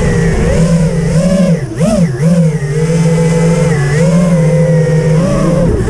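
FPV quadcopter's brushless motors and propellers, heard from the onboard camera, with a steady high whine whose pitch swoops up and down as the throttle is blipped. The biggest rise and fall comes a little under two seconds in, with smaller swoops near the start, about four seconds in and near the end.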